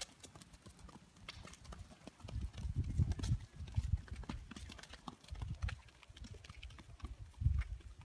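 Hoofbeats of a ridden Rocky Mountain Horse on a dirt track, a steady run of short clops. Bouts of low rumble come and go about two seconds in, around the middle and near the end.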